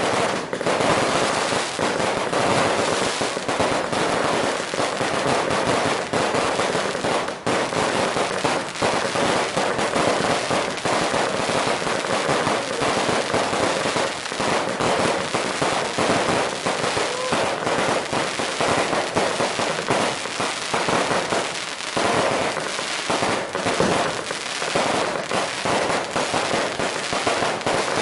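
Fireworks and firecrackers going off in a dense, continuous barrage: rapid crackling and popping, many reports a second, with no letup.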